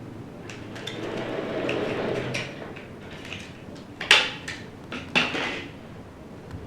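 An XPG Adata Gammix D30 DDR4 RAM stick being handled and pressed into a Gigabyte B450M DS3H motherboard's memory slot: plastic rustling and small clicks, then two sharp clicks about four and five seconds in.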